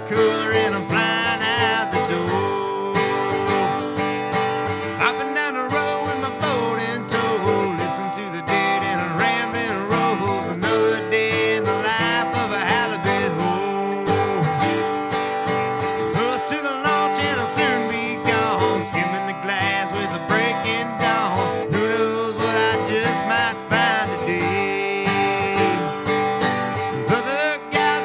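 Country music with guitar, played as an instrumental passage with no singing.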